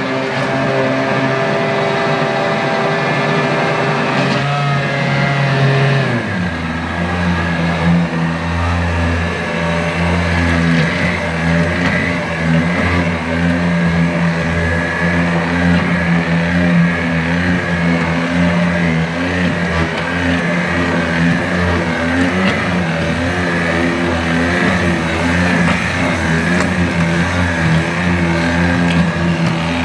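Commercial stick blender motor running steadily while mixing liquid soap paste in a steel pot. Its pitch drops suddenly about six seconds in, and it runs lower from then on.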